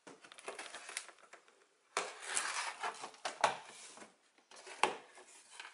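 Cardboard rustling and scraping as flat-pack furniture parts are handled inside their shipping box, with a few sharp knocks as pieces shift.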